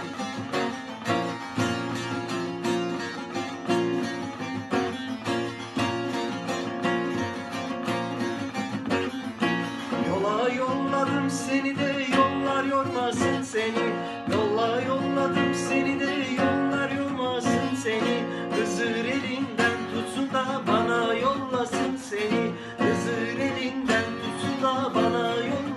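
Instrumental passage of a Turkish halay folk song: bağlama and guitar playing together over a steady, driving strummed rhythm. From about ten seconds in, a wavering, ornamented melody comes through on top.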